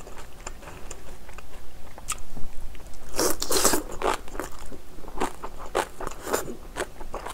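Close-miked crunching and chewing of napa cabbage kimchi, with sharp crisp bites. The loudest, densest crunching comes about three seconds in, followed by separate crunches about three times a second.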